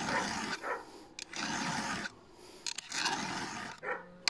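4.8 mm round chainsaw file rasping across a chain's cutter tooth in three slow strokes, finishing the sharpened tooth.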